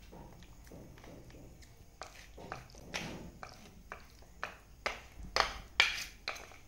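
Metal spoon mixing marinated chicken pieces in a steel plate: soft scraping with clinks and taps of the spoon against the plate, coming faster and louder near the end.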